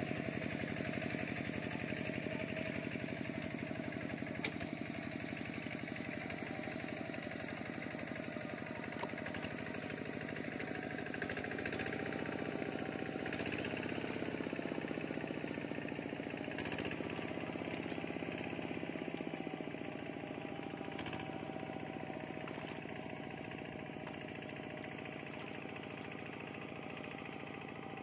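An engine running steadily, with its pitch wavering a little midway and the sound easing slightly near the end.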